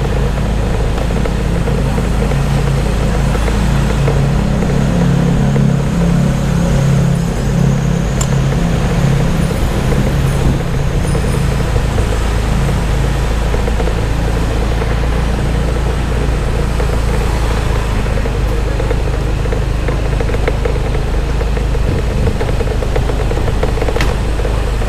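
Motorbike engine running while riding slowly through heavy road traffic, with the surrounding traffic noise. The engine note is stronger for several seconds early on.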